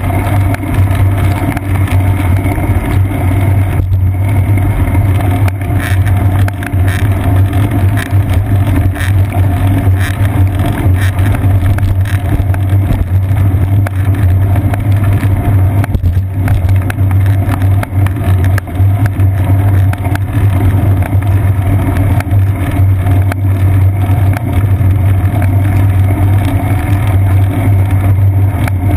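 Loud, steady droning rumble of a bicycle rolling on wet pavement, picked up through a seat-post-mounted GoPro Hero 2 in its sealed housing: road vibration and wind, with frequent small knocks and rattles.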